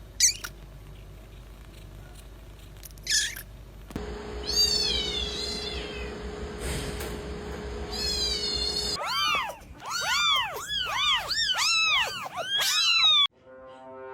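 Cats meowing: a few short high calls, then a quick run of short, arching meows, about two a second, that cuts off abruptly near the end.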